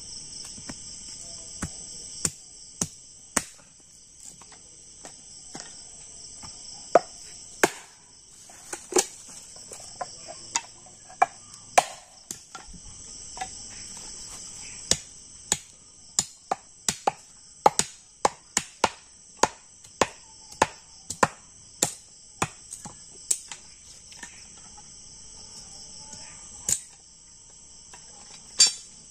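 Sharp wooden knocks as green bamboo is struck and chopped, irregular, about one or two a second and more frequent in the second half, over a steady high chorus of crickets.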